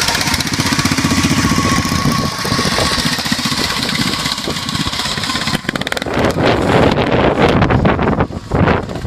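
Racing lawn mower engine running loud and close, with a steady whine over its rapid firing. About five and a half seconds in it gives way to gusty wind buffeting on the microphone.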